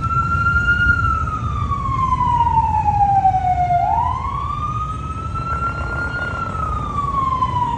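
Siren wailing slowly, rising over about two seconds and falling over about three, one cycle roughly every five seconds, over a steady low rumble of traffic.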